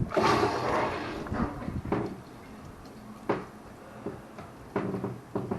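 Well pump running and water rushing into the pressure tank as it fills and builds pressure. A loud rush at first settles into a quieter steady hum, with a couple of sharp knocks.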